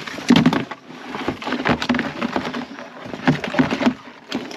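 Irregular clatter and knocking of hard-shelled mud crabs being handled and sorted from a crab pot.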